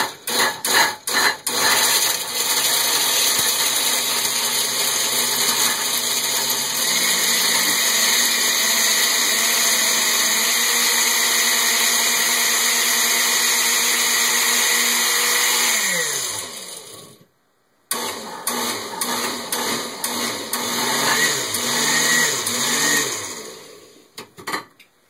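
Oster countertop blender crushing ice and mango chunks: choppy and uneven for the first couple of seconds, then a steady motor run that winds down with a falling pitch. After a short break it runs again for several seconds with a wavering pitch, then stops.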